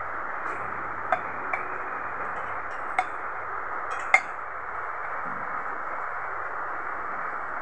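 Metal serving ladle clinking against an aluminium pot and steel dishes, four short ringing clinks with the loudest about four seconds in, over a steady hiss.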